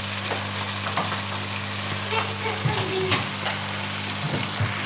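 Chicken frying and sizzling in a karahi, with a few light knocks of the wooden spatula against the pan over a steady low hum.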